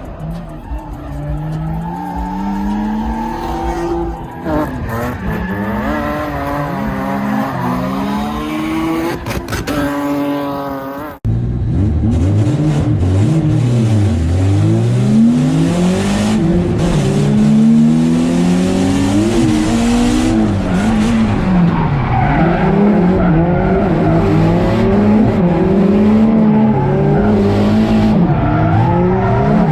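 Turbocharged 1JZ-GTE inline-six in a Lexus SC300 revving up and down repeatedly while drifting, with tires squealing. About eleven seconds in the sound breaks off abruptly and comes back louder.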